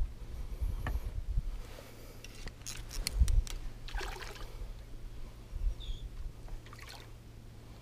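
Water splashing and trickling as a hooked fish is worked at the surface toward a landing net, with scattered short clicks and splashes over a low rumble of wind on the microphone.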